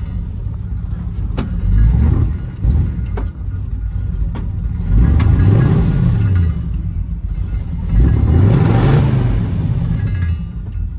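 1966 Ford F100's engine running just after a fuel-pump replacement, revved up and back down about three times. It runs not quite smoothly ('not 100% happy') but has fuel again.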